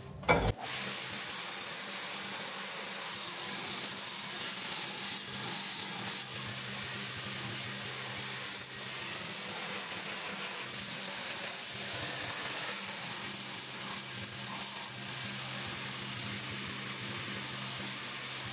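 Belt linisher running, its abrasive belt grinding the end of an exhaust pipe to shape a merge joint: a steady hiss over the machine's hum.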